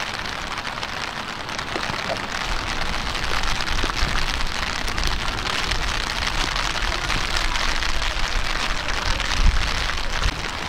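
Steady rain falling: an even hiss of many fine drop ticks. Low rumbling bumps come and go underneath, the strongest near the end.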